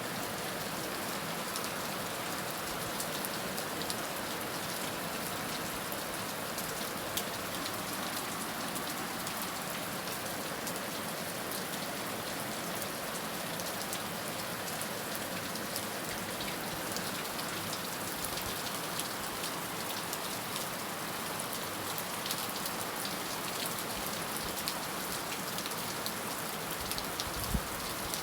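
Heavy rain falling steadily, a dense even hiss with many individual drops ticking on a surface.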